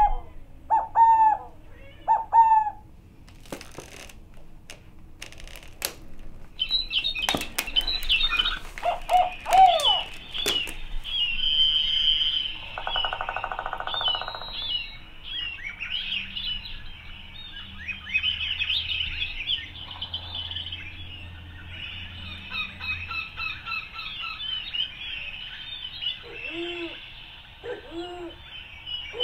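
Many overlapping bird-like chirps and whistled calls, with a few sharp clicks in the first third and a short buzzy rattle around the middle.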